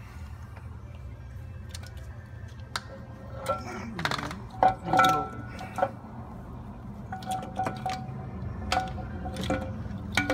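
Metal tools and engine parts clinking: a series of sharp metallic clinks with a short ring, loudest and closest together about four to five seconds in, then spaced out, over a steady low hum.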